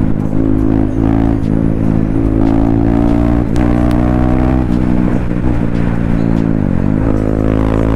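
KTM Duke 390's single-cylinder engine running with its exhaust removed, under way: the note climbs under throttle and drops and climbs again a few times as the rider shifts and rolls off. The rider calls the open-pipe sound "खतरनाक" (fierce).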